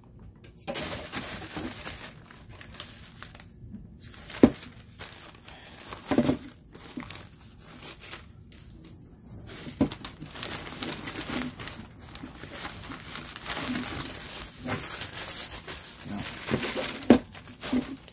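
Plastic packaging crinkling and rustling as a tripod in its bag is handled and unwrapped by hand, with a few sharp knocks now and then, the loudest a little over four seconds in.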